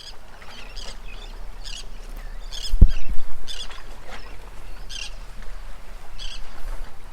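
Birds chirping in short repeated calls, a natural outdoor ambience sound effect, with one low thud about three seconds in.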